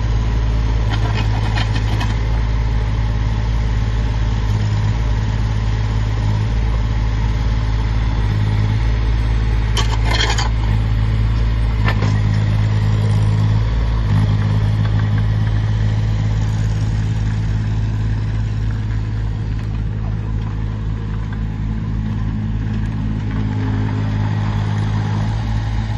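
Diesel engine of a JCB rubber-tracked micro excavator running steadily, its pitch shifting a little as the machine tracks along and the boom and bucket are worked. A few short knocks and a brief clatter about ten seconds in.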